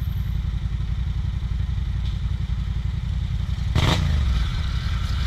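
Yamaha MT motorcycle engine idling with a loud, fast-pulsing exhaust note. About four seconds in, a throttle blip brings a sudden sharp crack from the exhaust, and the note then falls back.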